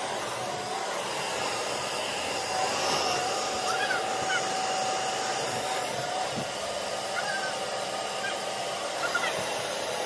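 Dyson ball upright vacuum cleaner running on carpet: a steady rush of air with a constant whine as it is pushed back and forth.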